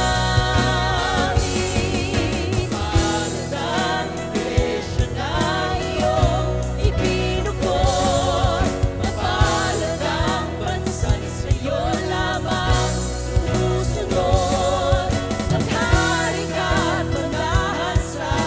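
Live worship band playing a contemporary Christian praise song, with voices singing over a steady beat.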